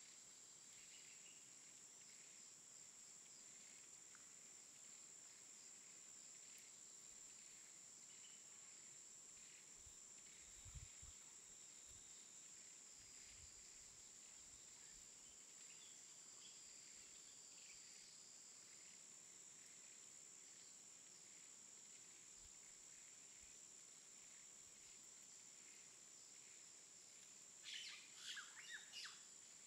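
Faint, steady high-pitched insect drone, with scattered faint chirps and a short run of louder bird chirps near the end.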